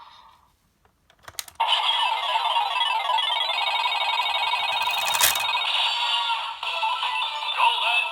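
Bandai DX Fever Slot Raise Buckle toy: a few sharp clicks about a second in, then its small speaker plays a loud electronic slot-machine jingle of rapid repeating beeps that runs on without a break.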